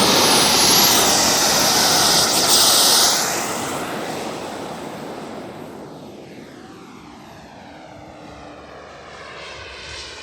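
MB-339 jet flying past, loud for the first three seconds and then fading steadily as it moves away.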